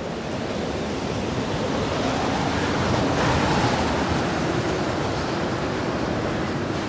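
Steady rushing noise of wind and sea surf, swelling about three seconds in and easing off again.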